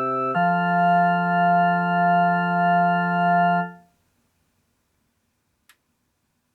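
Closing chord of a recreated Japanese municipal disaster-prevention radio chime melody in an electronic keyboard tone: a chord change, then one long wavering chord that stops about four seconds in. A faint click near the end.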